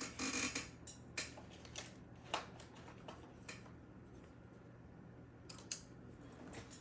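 Vinyl sticker sheet being handled: a short crinkle of plastic film at the start, then scattered light clicks and taps of fingers and pieces against the charger's plastic case.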